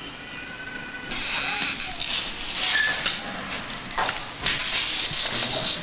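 Metal crutches tapping and shoes scuffing on a tiled floor as a man in leg braces walks, irregular clicks over a steady hiss, with voices in the background.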